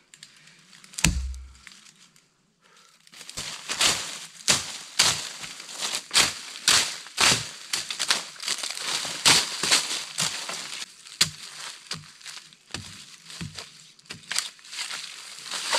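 Dry leaf litter and twigs crunching and crackling in quick, irregular bursts as the forest floor is cleared by hand, after a single sharp knock about a second in.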